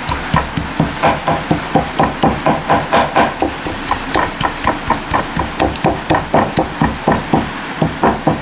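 A large kitchen knife chopping skin-on squirrel meat into small pieces on a wooden cutting board. The blade strikes the board in rapid, steady chops, about five a second.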